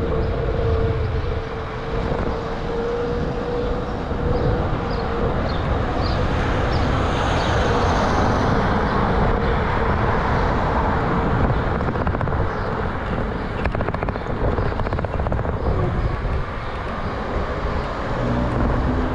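Wind rushing over the microphone of a handlebar-mounted GoPro Hero 8 Black on a moving bicycle, mixed with tyre and road noise.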